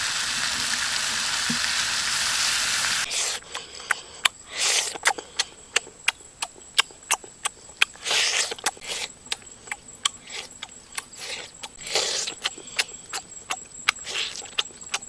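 Pork ribs sizzling on a hot rock over a fire, a steady hiss that stops suddenly about three seconds in. Then close-up eating sounds: sharp wet smacks of lips and chewing, two or three a second, with a few longer noisy sounds among them.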